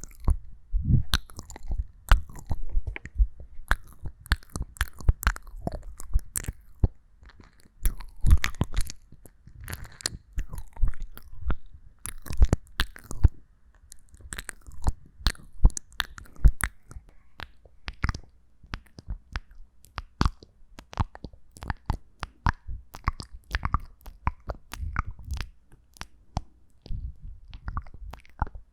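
Close-miked ASMR mouth sounds: a rapid, irregular run of wet clicks, smacks and mouth noises, with brief pauses.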